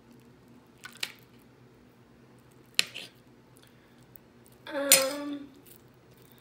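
A metal spoon clinking against a ceramic plate while cutting into a boiled egg: two sharp clinks about one and three seconds in, then a louder clink near five seconds together with a brief vocal sound.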